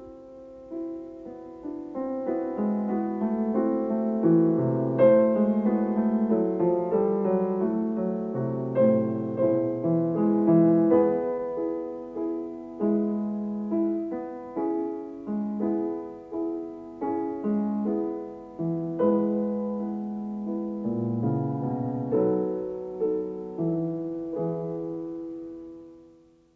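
Solo piano music: a calm piece of struck notes and chords, each ringing away, fading out near the end.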